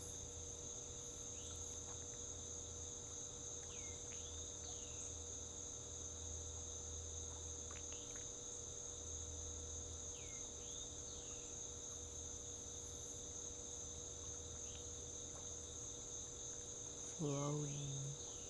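Steady, continuous high-pitched chirring of crickets, with faint short falling chirps now and then. A brief low voice-like sound comes near the end.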